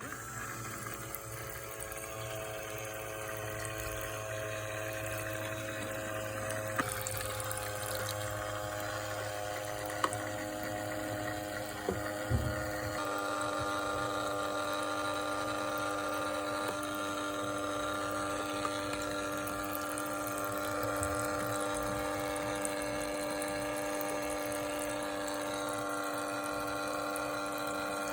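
Small battery-powered water pump of a toy shower running with a steady whine, water spraying and trickling. The whine changes pitch twice, and there are a few small knocks.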